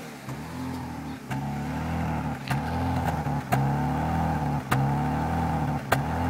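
BMW E46 engine idling unevenly, its speed wavering up and down, with sharp clicks about once a second. The hunting idle is the fault the owner shows, appearing after the throttle is pressed and released and still unexplained after replacing the DISA valve, PCV oil separator, hoses, plugs and fuel pump.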